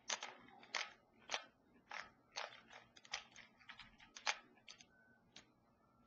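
Plastic Rubik's cube being turned by hand: a quick, irregular run of sharp clicks as the layers snap round, stopping about five and a half seconds in.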